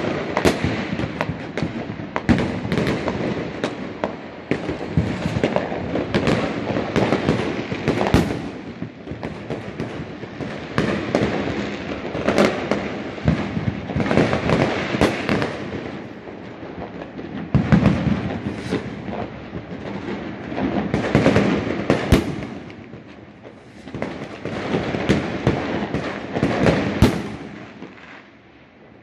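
Fireworks going off without a break: a dense run of bangs and crackling that swells and eases every few seconds, with a few sharper, louder bangs standing out. It thins out near the end.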